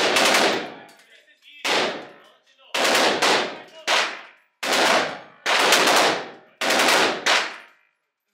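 Gunshots in an indoor shooting range: about eight loud shots, roughly one a second and one or two close together, each followed by a short echoing decay. They come too fast to all be from one bolt-action rifle.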